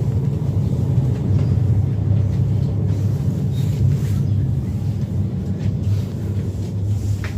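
Car driving, a steady low rumble of engine and road noise as heard from inside the cabin.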